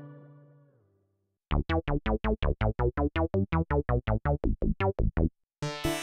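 Dave Smith Prophet-6 analog polyphonic synthesizer stepping through presets. A held chord fades away, then after a short gap comes a fast, evenly spaced run of short, plucky, bass-heavy notes, about six a second, lasting nearly four seconds. Near the end a bright, sustained, pulsing patch begins.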